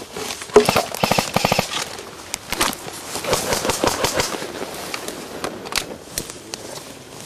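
Airsoft electric rifles firing on full auto: a rapid burst of about ten shots a second near the start, then scattered shots and another burst a few seconds in.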